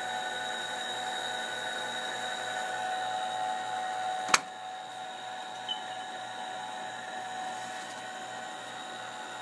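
8-inch Shugart floppy drive's AC spindle motor running continuously with a steady whine and a low hum pulsing a few times a second. A single sharp click about four and a half seconds in, after which the whine is a little quieter.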